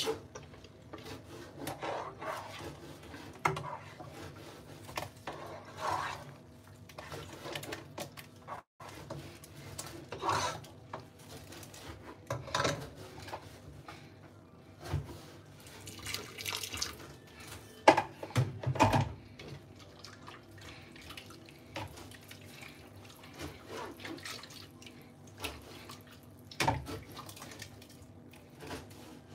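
Liquid splashing and sloshing in a pot of soup as a spoon stirs it, with scattered knocks of the spoon and utensils against the pot. Near the end, liquid is poured into the pot from a plastic blender jug.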